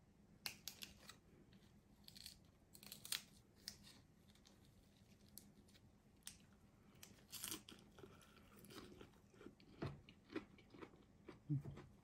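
Faint crisp crinkling and light clicks as a fresh lettuce leaf is folded around a piece of potato with chopsticks, then crunchy chewing of the lettuce wrap.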